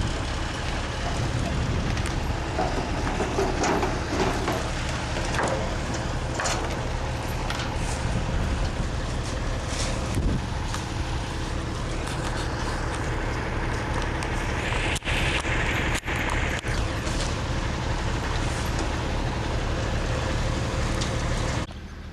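Concrete mixer truck's diesel engine running steadily, with scattered clanks and knocks and a brief hiss about fifteen seconds in. The sound drops away abruptly just before the end.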